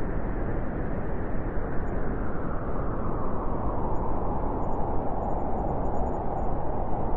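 Howling wind blowing steadily with a low rumble underneath, growing stronger toward the end.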